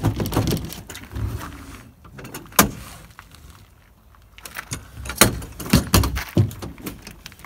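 Aluminium RV siding panel being tugged away from the trailer wall, flexing and rattling against the silicone sealant that still holds it. A single sharp crack comes about two and a half seconds in, and a cluster of knocks and rattles comes near the end.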